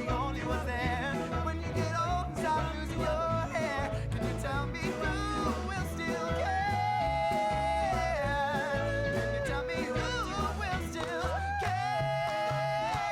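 Background music: a pop-rock song with a singer holding long wavering notes over bass and drums.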